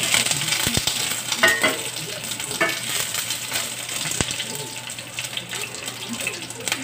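Onion rings sizzling in hot oil in a cast-iron skillet, a steady crackling fry. Metal tongs click against the pan a few times in the first half.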